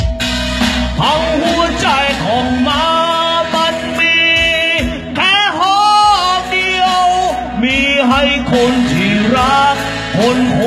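A man singing into a handheld microphone over a backed music track, holding long notes that waver and bend in pitch.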